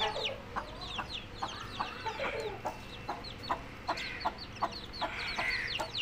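A mother hen clucks in short calls, about two a second, while her three-week-old Aseel cross chicks peep in quick, high, falling chirps around her.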